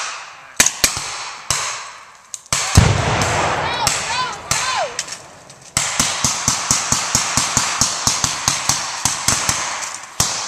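Rifle gunfire: a few single shots, then about three seconds in a loud blast with a deep rumble and a few falling whistles after it, and from about six seconds on a rapid run of shots, around four a second.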